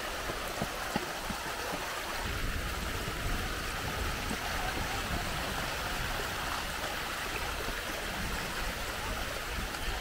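Small woodland stream rushing and splashing down a rocky cascade: a steady, even rush of water.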